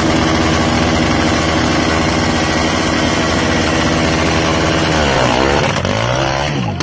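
ATV (quad bike) engine running with a steady pitch, then its pitch swinging up and down over the last two seconds as the quad is pushed off.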